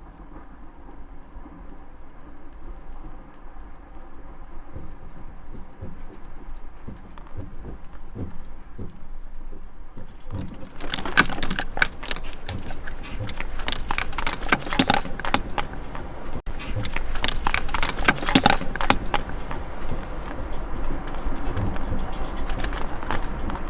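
Rattling and clattering of things shaken by an earthquake over a low rumble, growing louder; from about ten seconds in it turns into a dense, rapid clatter.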